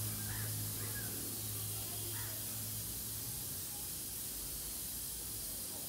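Steady outdoor background hiss with a low hum that fades out about halfway through, and a few faint short chirps in the first couple of seconds.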